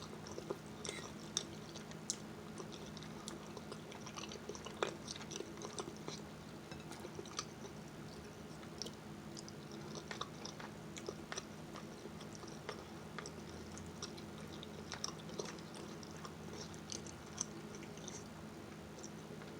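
Close-miked chewing of food, with soft wet mouth clicks and smacks scattered throughout, over a faint steady low hum.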